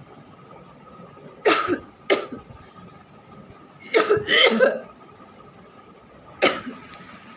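Someone coughing in short bouts: two coughs about a second and a half in, a longer run of several coughs around four seconds in, and one more near the end.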